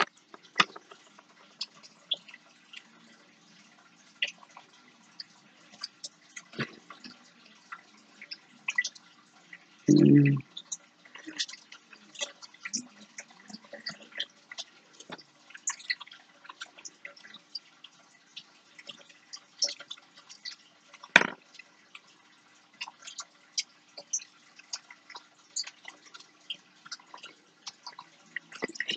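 Small scattered clicks and ticks of fingers handling thread and a paper clip while wrapping the thread around the clip, over a faint steady hum. A short low sound comes about ten seconds in, and a sharper knock about twenty-one seconds in.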